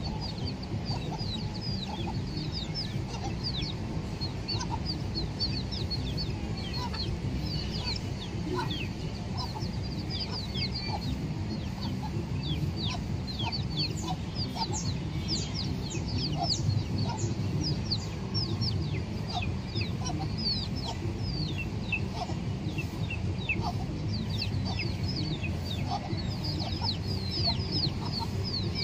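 Chicks peeping over and over in short, falling chirps, with a hen clucking low among them. A steady low background rumble runs underneath.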